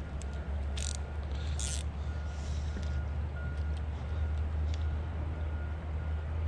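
Steady low rumble of a heavy vehicle running, with a faint high beep repeating at uneven intervals. Two short hisses come about one and one-and-a-half seconds in.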